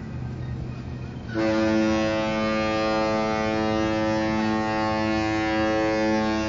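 A cruise ship's horn sounding one long, steady blast that starts about a second in, over a low rumble.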